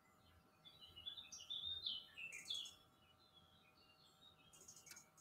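Faint bird song: a quick run of high chirping notes through the first half, thinning to a few soft calls, with a single sharp click near the end.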